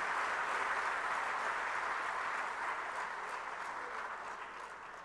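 Audience applause that holds steady, then slowly dies down toward the end.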